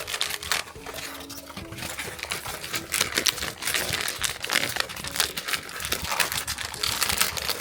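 Plastic blind-box packaging crinkling and crackling in irregular bursts as it is handled and squeezed to feel the shape of the plush badge inside.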